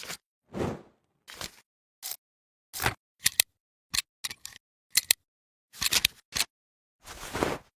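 Editing sound effects for a light-streak overlay: a run of short, separate whoosh and click hits, about a dozen, each under a second long, with dead silence between them. A longer swelling hit comes near the end.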